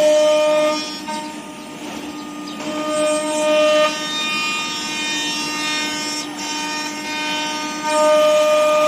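CNC nesting router's spindle running at a steady high speed, a constant whine, with the cutting noise easing for a couple of seconds and rising again near the end.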